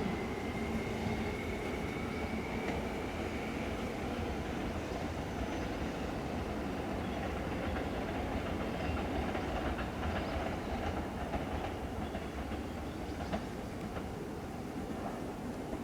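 A Seibu Railway electric train running past, with a steady rolling rumble and a faint whine rising in pitch over the first few seconds. Wheels click over rail joints now and then, and the sound eases off slightly toward the end as the train moves away.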